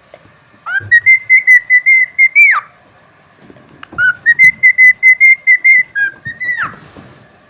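Cockatiel whistling: two phrases of quick repeated notes held on one high pitch, each ending in a sharp downward swoop.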